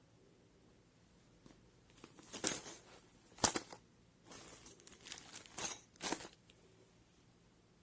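Handling noises: short bursts of rustling or scraping and one sharp click, with no motor running.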